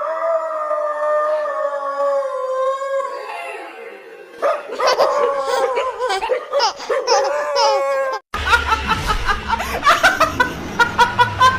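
High-pitched human laughter, shrieking and held at first, then in broken bursts. About eight seconds in it cuts off abruptly and music with a strong regular beat takes over.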